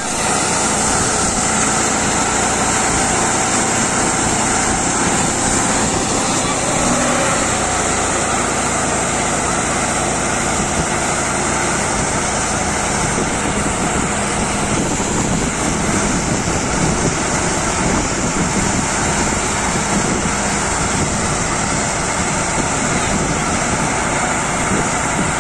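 Tractor-driven grain loader running steadily, its tractor engine and machinery making a constant mechanical din as grain is carried up a spout and poured into a tipper truck's bed.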